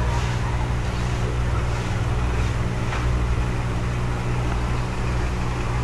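Steady low hum of an aquarium air pump, with the hiss of air bubbles streaming up through the tank water.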